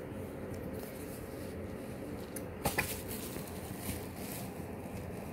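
Cardboard cosmetics box being opened by hand, with paper rustling and a sharp double click a little before the middle, over a steady low hum.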